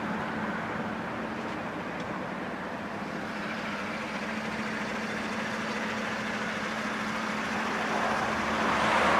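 Steady road and engine noise heard from inside a moving vehicle, with a low steady hum, growing a little louder near the end.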